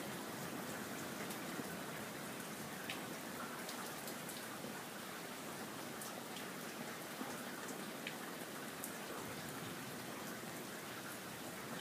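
Steady thunderstorm rain: an even hiss with scattered sharp taps of individual drops.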